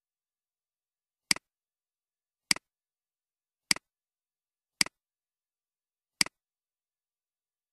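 Computer mouse button clicked five times, about a second or so apart, each click a sharp press followed at once by a softer release.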